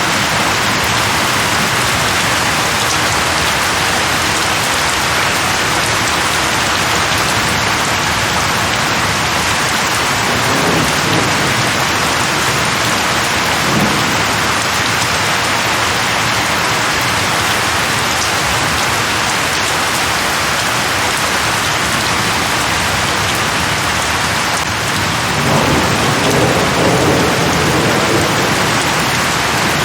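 Steady heavy rain falling on leaves, an even hiss, with low rumbles of distant thunder about a third of the way in and again from near the end.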